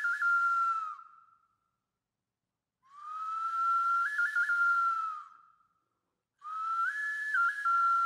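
A breathy flute playing long held notes on one pitch, each bending up into the note and falling off at the end, with quick flicks to a higher note in the middle. One note ends about a second in, a second sounds from about three to five seconds, and a third begins near six and a half seconds.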